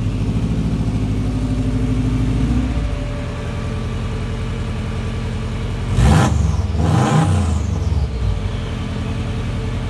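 Turbocharged Subaru WRX flat-four engine in a VW bus running at a steady idle, then revved twice in quick succession about six and seven seconds in. A faint high whistle falls away after the second rev.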